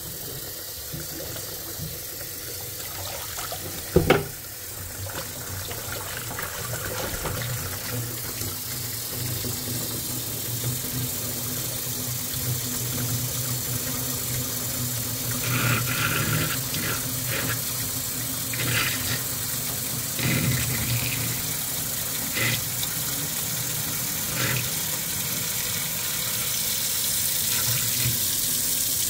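Kitchen faucet running water steadily into the sink, growing slowly louder as it fills, while the freshly snaked drain is tested. A sharp knock about four seconds in and a few light clinks later on.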